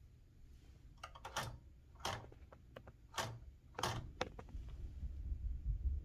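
Several sharp mechanical clacks from a 1976 Smith Corona Super-G manual typewriter, four louder ones roughly a second apart, with a low rumble near the end.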